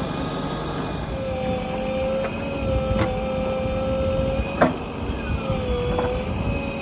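JCB 3DX backhoe loader's diesel engine running, with a steady whine over it and three sharp metallic clanks, the loudest a little past halfway.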